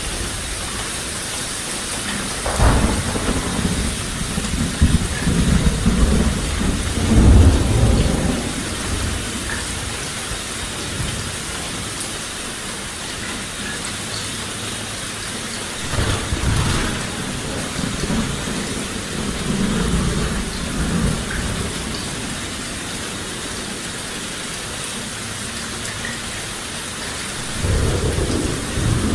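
Steady heavy rain hissing, with low rolling thunder rumbling in several times: a long roll from a few seconds in, another about halfway through, and a third starting near the end.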